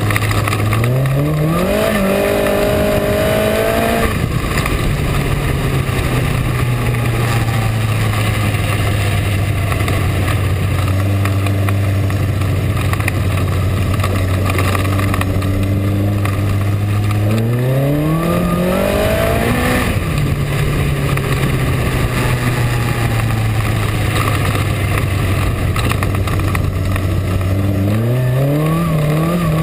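Minisprint race car's engine heard onboard, lapping a dirt oval. The pitch climbs as it revs along a straight, then drops sharply as the throttle comes off for the turn. It holds a steady lower note through the long corners, and this happens twice, with another climb starting near the end. A constant rush of wind and track noise runs underneath.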